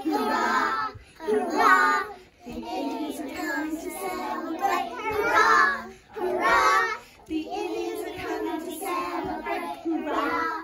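A group of three-year-old children singing a song together, in short phrases broken by brief pauses.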